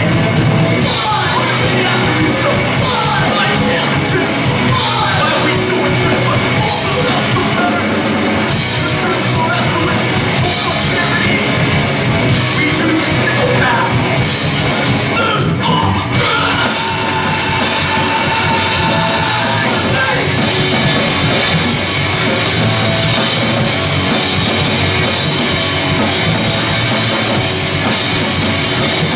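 Hardcore punk band playing live: distorted electric guitar, bass and drum kit with shouted vocals, loud and continuous, with a momentary break about sixteen seconds in.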